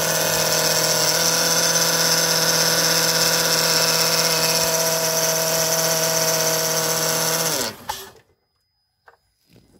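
2005 Honda Odyssey 3.5-litre V6 idling with a steady, loud whine from its failing power steering pump. About seven and a half seconds in, the engine is switched off: the whine drops in pitch and stops, leaving a few faint clicks.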